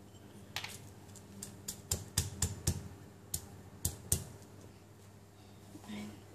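Granite pestle pounding chilies, garlic and salt in a granite mortar: about ten sharp knocks at an uneven pace, ending about four seconds in, as the chilies are crushed into a paste.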